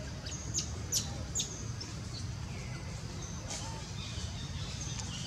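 Short, high-pitched animal squeaks: about four quick ones in the first second and a half, then one more a couple of seconds later, over a steady low rumble.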